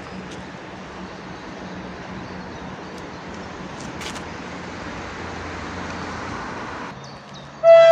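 Steady rumble with a low engine hum from an idling diesel railbus. Shortly before the end, a loud train horn blast starts.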